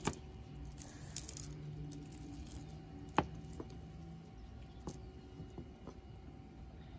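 Jewelry being handled: a metal-chain necklace with glass beads clinks and rattles against itself and the cloth-covered table. There are a few sharp clicks, the loudest about three seconds in, and softer ones near the end.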